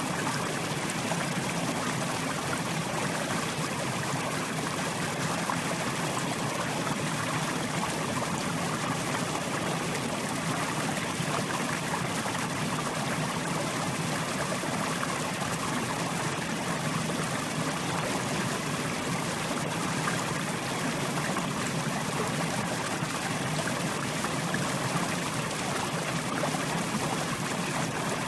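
Mountain river flowing, a steady rushing and burbling of water over rocks.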